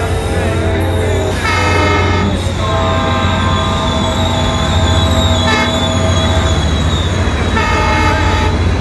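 Train horn sounding three chord blasts: a short one, a long one of about three seconds, and another short one near the end. Underneath runs the steady low drone of a passing diesel train and a thin high steady tone.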